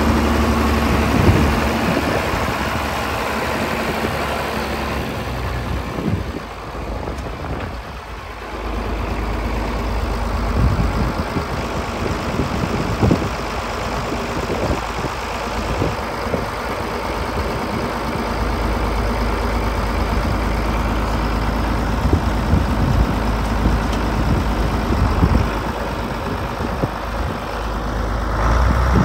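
John Deere 4010 tractor's six-cylinder engine idling steadily. Its sound dips briefly about a quarter of the way in, then picks back up.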